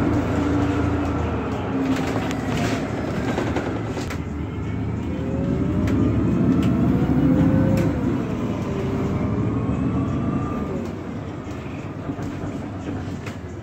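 A 2019 Nova Bus LFS CNG city bus under way, heard from on board: the natural-gas engine and driveline run steadily with a whine that glides up and down in pitch as the bus changes speed, easing off near the end.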